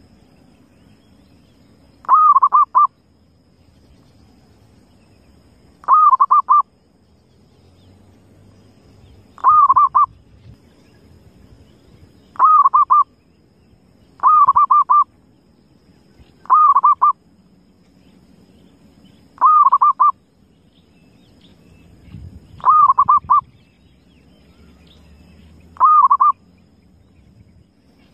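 Zebra dove (perkutut) cooing: nine short trilled phrases, each well under a second, repeated every two to four seconds.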